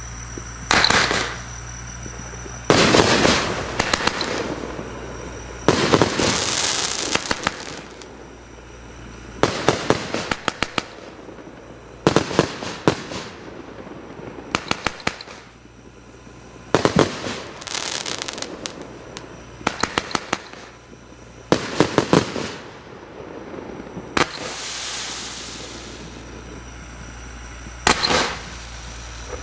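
Black Wolf 51-shot, 30 mm multishot firework cake firing: groups of sharp launch and burst reports come every two to three seconds, each trailed by hissing and crackling as the stars and tails burn out.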